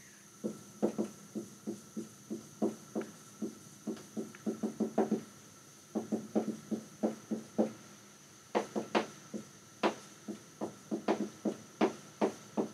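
Dry-erase marker tapping and scraping on a whiteboard while words are handwritten: a quick series of short knocks in runs, with brief pauses between words.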